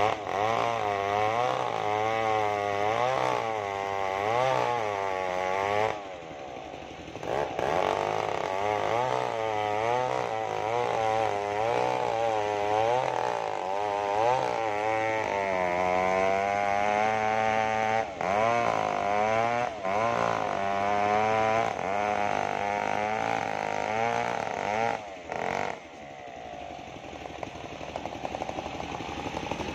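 Two-stroke chainsaw cutting through a sengon log, its engine pitch wavering up and down as the chain bites. It eases off briefly twice and drops to a lower, steadier run near the end as the cut finishes.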